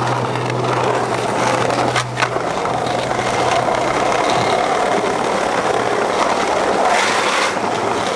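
Skateboard wheels rolling over paving slabs, a steady rolling rumble, with a sharp clack of the board about two seconds in.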